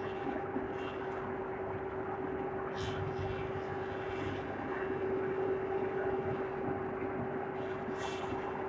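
Four-sided wood moulding machine running steadily with a constant whine, processing merbau timber.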